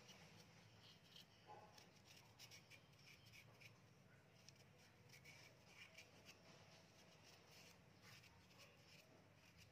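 Faint, irregular scratching of a small knife blade scraping the skin off fresh ginger root.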